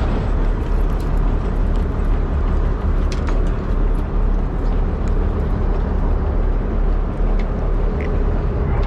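Steady low rumble of a charter fishing boat's engine running, mixed with wind and water noise.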